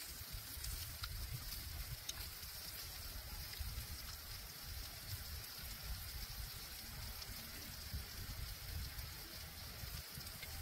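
Steady outdoor background noise: a hiss with an irregular low rumble.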